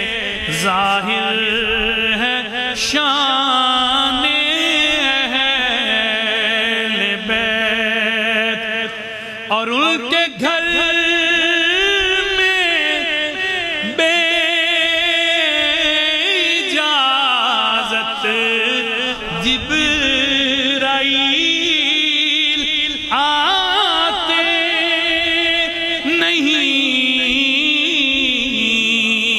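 A man singing an Urdu devotional manqabat in praise of the Ahl al-Bayt into a microphone, drawing out long held notes with melismatic runs.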